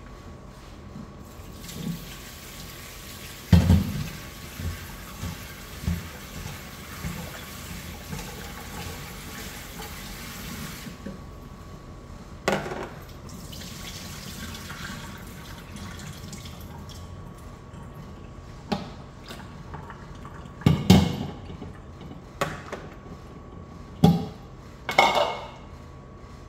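Tap water running into a stainless steel kitchen sink for about the first ten seconds while hands and raw chicken pieces are rinsed, with scattered knocks and clatters of a bowl and plastic plate against the sink and counter. The loudest knocks come a few seconds in and about three-quarters of the way through.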